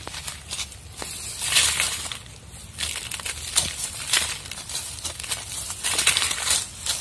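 Dry leaf litter and brush crunching and rustling in irregular bursts, one to three a second.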